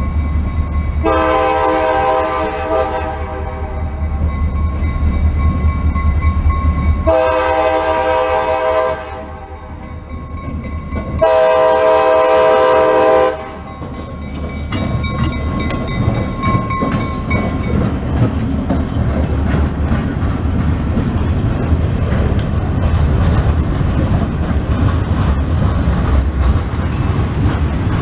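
CSX diesel freight locomotives sounding their chord air horn for a road grade crossing in three blasts, the last the loudest, over the steady rumble of the engines. From about a quarter of the way in, the locomotives pass and covered hopper cars roll by with a steady clatter of wheels over the rail joints.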